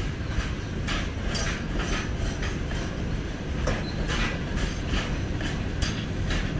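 Empty Indian Railways BCNHL covered bogie wagons rolling past: a steady low rumble with the wheels' irregular clickety-clack and clanking over the rail joints.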